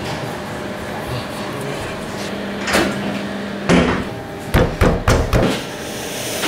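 Sharp knocks and clatters of hard objects being set down or banged over a steady background hum: one knock a little before the middle, another about a second later, then a quick run of four or so.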